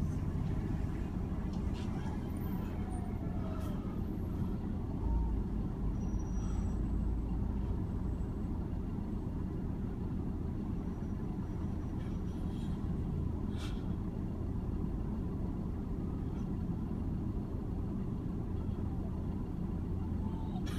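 Steady low rumble of road traffic: cars moving, with a brief swell in the rumble about five seconds in.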